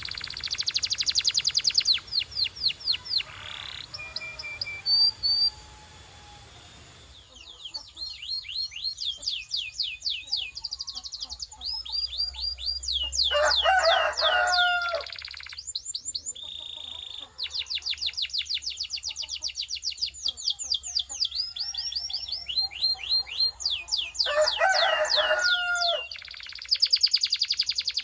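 Domestic canary singing: fast trills of repeated high, downward-sweeping notes, broken by short pauses, with a lower rolling phrase twice, about halfway through and near the end.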